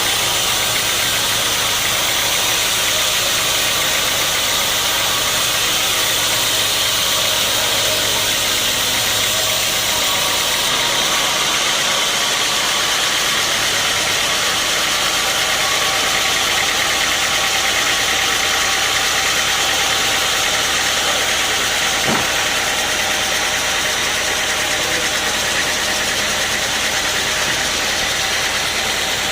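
Sawmill machinery running steadily: an engine with a loud, high-pitched saw hiss. The low hum changes about ten seconds in, and there is a single short knock about two-thirds of the way through.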